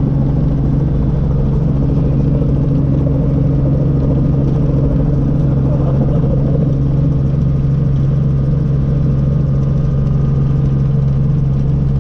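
Light helicopter's engine and rotor running with a steady, loud drone, heard inside the cabin as the helicopter lifts off and climbs.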